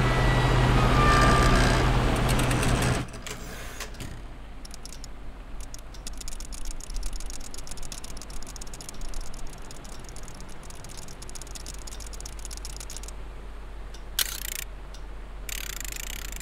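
Old metal electric fan running with a steady low hum, which cuts off sharply about three seconds in. A much quieter stretch of faint scattered ticks and clicks follows.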